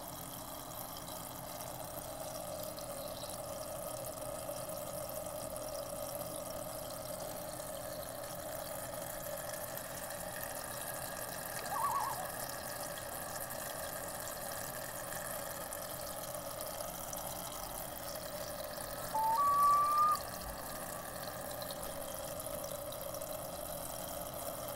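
Homedics Soothing Sounds machine playing a steady running-water nature sound through its small speaker. A short beep about halfway through comes as a button on its side is pressed, and a louder two-note beep, the second note higher, follows near the end.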